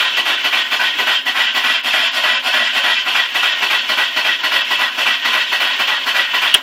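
Car engine being cranked by its starter in a rapid, even rhythm without catching, stopping suddenly near the end. The engine turns over but won't fire; the owner suspects it is flooded or that the fuel pump has failed.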